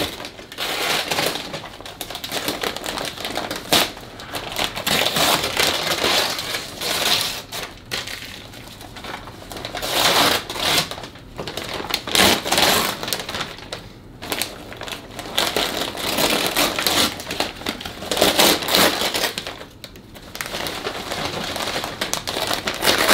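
Wrapping paper being torn and crumpled as a present is unwrapped, in irregular rustling spurts.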